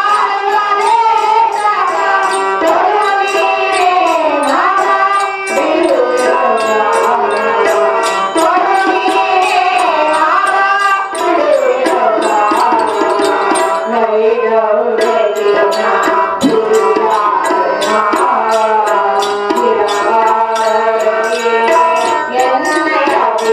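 Stage music: a gliding Indian melodic line over a fast, steady tabla beat.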